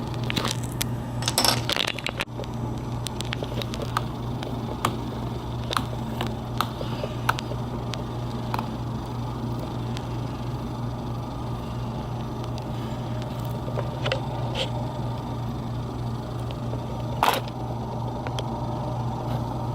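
Razor blade scraping cured windshield-repair resin off a phone's glass screen: scattered short scrapes and clicks, a little louder about a second in and near the end, over a steady low hum.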